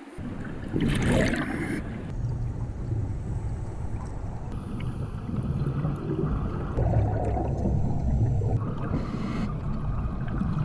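Underwater audio from a diver's camera: a steady low rumble of water noise. About a second in there is a louder gurgling burst of exhaled bubbles from the scuba regulator.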